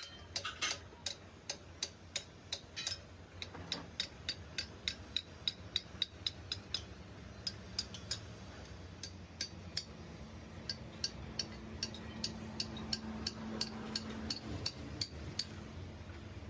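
A steady run of sharp metallic taps, about two to three a second, over a low machine hum, with the taps stopping near the end.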